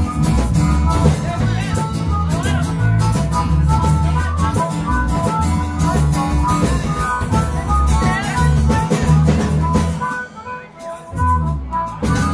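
Live blues-rock band playing an instrumental passage, a harmonica carrying quick melodic runs over acoustic guitar. The music thins out briefly about ten seconds in, then picks up again.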